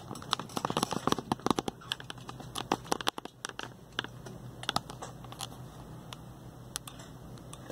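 Irregular small clicks and crackles of handling on a workbench, densest in the first five seconds and thinning out later, over a steady low hum.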